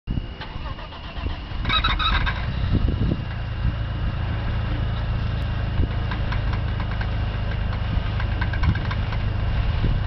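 1997 Audi A6 Avant engine cranking and starting about a second and a half in, then running steadily; the car has a bad power steering pump.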